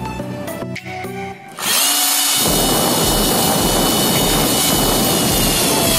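Background music, then about a second and a half in a drill press starts up and runs steadily with a high whine, its bit drilling into a steel hex nut threaded on a bolt.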